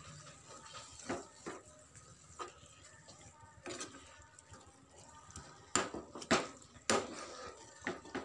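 A spoon scraping and knocking against a pan while stirring thick pav bhaji. It comes as irregular short clicks and scrapes, loudest a little past the middle.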